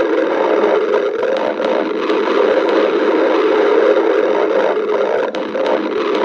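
Human stomach growling: a steady, continuous rumble.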